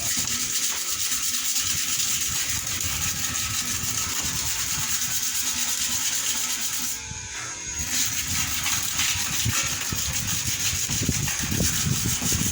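Sandpaper rubbed by hand over an old iron part, scraping off paint that has been loosened by burning in a fire so that it comes away easily. The rubbing is steady, with a short pause about seven seconds in.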